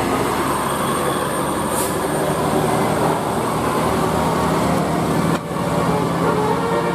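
Loud traffic noise from a passing bus: engine running and road rumble with a steady low hum, level dipping briefly about five seconds in.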